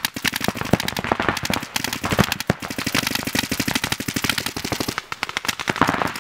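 Several paintball markers firing rapid strings of shots, many per second, the strings overlapping into near-continuous popping.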